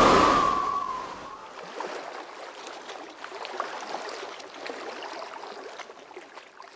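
A swelling whoosh peaks right at the start and fades over about a second and a half. It gives way to small waves lapping and gurgling, with many light irregular splashes, against the hull of a sailing catamaran.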